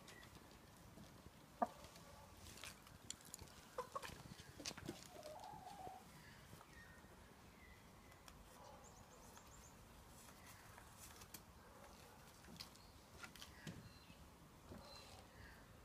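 A hen clucking softly now and then, with scattered light taps, the sharpest about a second and a half in. Most of the sound falls in the first six seconds.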